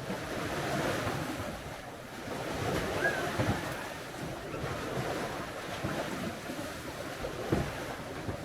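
Sea waves washing onto a beach, the surf swelling and ebbing every few seconds, with wind buffeting the microphone in a few low thumps.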